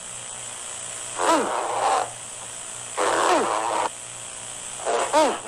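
Typewriter Guy's cartoon voice sounding out letter sounds: three short vocalizations, each dropping in pitch, spaced about two seconds apart, over a faint steady hiss.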